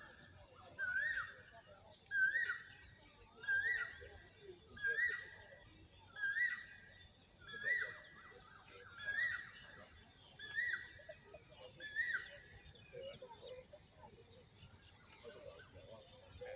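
A bird repeating the same short, rising call about ten times, roughly once every second and a half, then falling silent about twelve seconds in, over a steady high-pitched insect-like drone.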